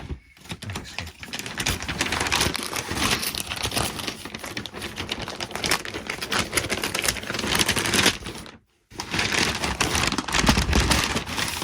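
Parcel packaging being handled and opened: dense crinkling, rustling and clicking of paper and card, broken by a brief silent gap about two-thirds of the way through.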